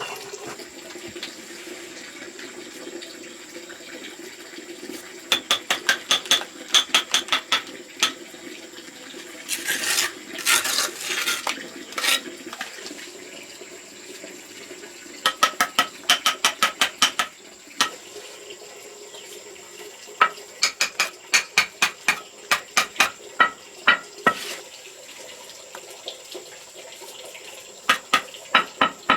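Hand tool working wet cement mortar: several runs of quick, sharp taps and scrapes, about four or five a second, with pauses between the runs.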